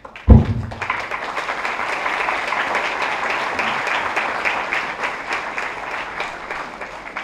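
A sharp low thump about a second in, then a crowd applauding, the clapping thinning out near the end.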